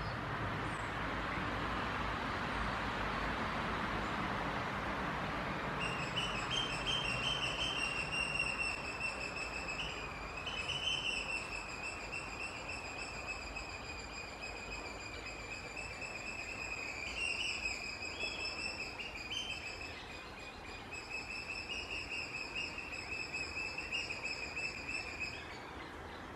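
A rumbling noise, then, from about six seconds in, a steady high-pitched squeal with overtones that wavers slightly and stops shortly before the end.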